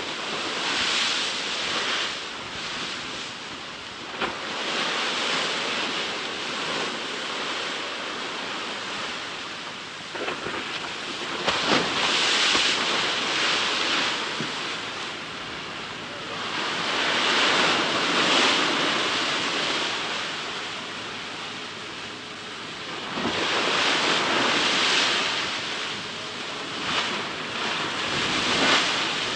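Ocean waves breaking and washing in, a hissing surge that swells and falls back every few seconds.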